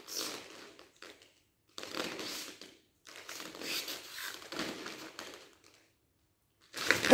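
Karate uniforms rustling and snapping as two karateka move through a strike and its counter, in three bursts. Just before the end a loud shout (kiai) starts.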